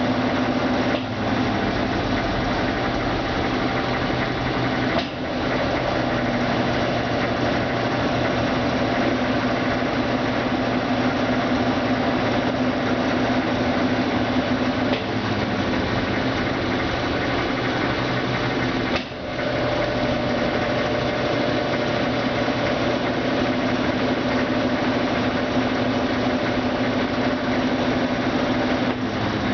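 Brastemp Ative BWL11AR top-loading washing machine spinning: a steady motor hum with a few brief dips in level, the pitch of the hum shifting slightly partway through.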